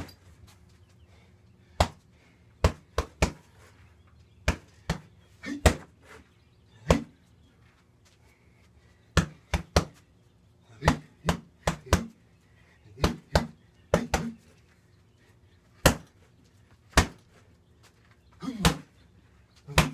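Strikes landing on a heavy punching bag, punches and knees, as sharp smacks in quick combinations of two to four, with short pauses between bursts and a couple of breaks of about two seconds.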